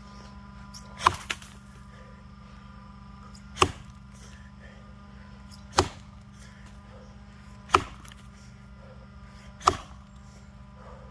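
Axe chopping into a box elder log: five strikes about two seconds apart, the first followed quickly by a lighter knock.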